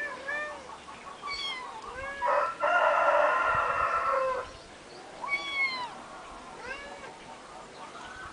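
Kittens mewing in short, arched calls again and again. A rooster crows once, loudly, for about two seconds from about two seconds in.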